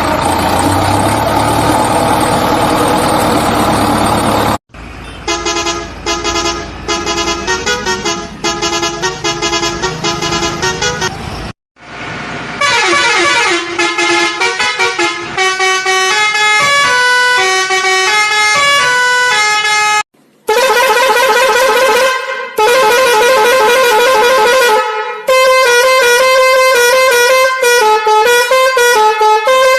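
Vehicle horn sound effects: after about four seconds of a dense, noisy blast, a musical horn plays quick tunes whose notes step up and down in short repeated patterns, broken by brief gaps.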